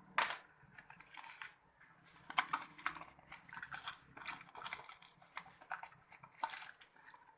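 Small packaging being handled: irregular crinkling and light clicks and taps.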